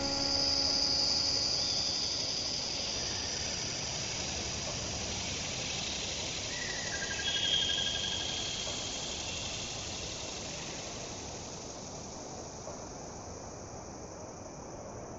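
Closing tail of an electronic music track: a steady hiss of noise with thin high whistling tones, fading slowly, with a short swell about seven seconds in.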